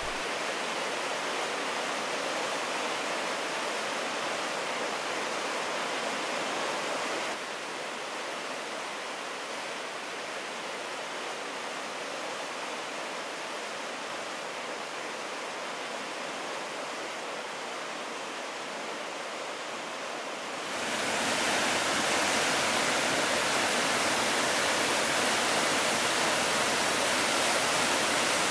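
Steady rush of flowing meltwater, a little quieter from about seven seconds in. About twenty-one seconds in it gives way to the louder, fuller rush of a waterfall.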